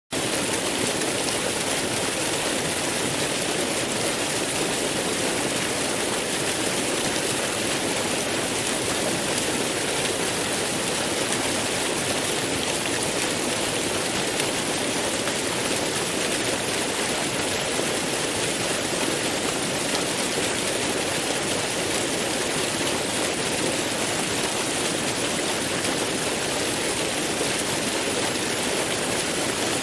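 Large waterfall: a steady, unchanging rush of falling water.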